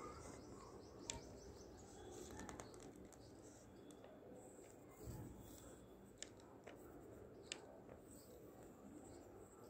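Faint scratching of a pen tip on paper as it draws looping lines, with a few light ticks.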